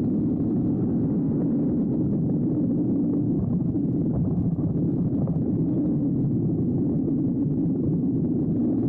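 Yamaha Blaster's single-cylinder two-stroke engine running steadily under way, with no change in pitch or level.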